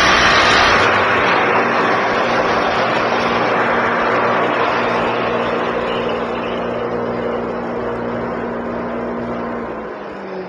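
Shopsmith's motor and saw blade winding down after the cut, a steady machine noise with a low hum that slowly fades and drops away near the end.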